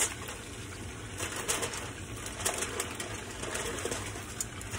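Aluminium foil crinkling as it is peeled off a pot of cooked rice, over the crackle of pork chops frying in oil in a pan.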